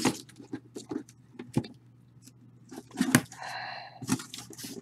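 A cardboard case is lifted off a stack of shrink-wrapped hobby boxes and the boxes are handled and set down: a series of knocks and taps, with a longer scraping squeak of box against box about three and a half seconds in.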